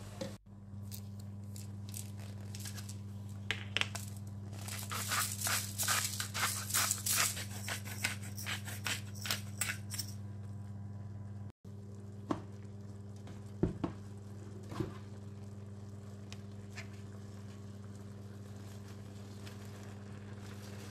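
A pepper mill grinding in a quick run of dry clicks for several seconds, over a steady low hum. A few single light knocks follow near the middle.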